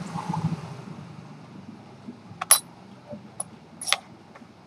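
Small steel watch parts clicking against steel tweezers and the bench as a strap buckle piece is set down: three short, sharp clinks, the first about halfway through and the loudest, the other two close together near the end. A low rumble fades out in the first second.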